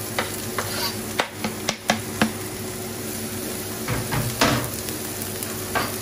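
Shredded carrot sizzling in a non-stick frying pan while diced French beans are scraped off a plastic chopping board into it with a cleaver: several sharp knocks of the blade and board in the first couple of seconds, then a louder scraping clatter about four seconds in.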